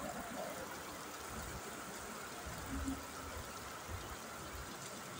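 Steady hiss of heavy rain falling on a paved street.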